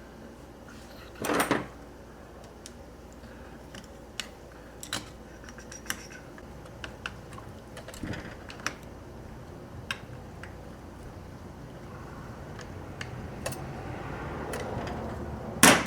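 Small metal clicks and taps of a screwdriver and parts as screws are driven to fasten the throttle body onto a Holley 4-barrel carburetor, with one louder clank about a second and a half in. A rushing background noise slowly grows toward the end.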